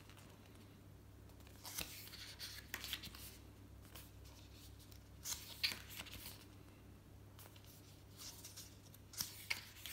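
Pages of a glossy paper booklet being turned by hand: several brief, soft paper rustles, with a faint low hum underneath.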